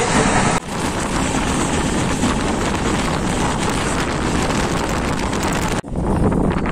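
Express train running at speed: a steady rush of wheel and rail noise with wind buffeting the microphone. The sound breaks off sharply and resumes twice, about half a second in and near the end.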